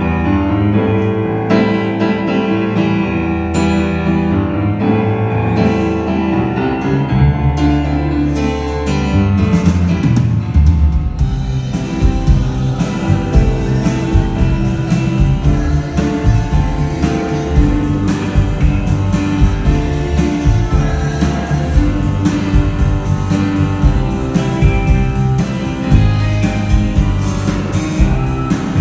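Rock band playing live through a PA: held chords for about the first ten seconds, then drums and the full band come in and play a steady beat.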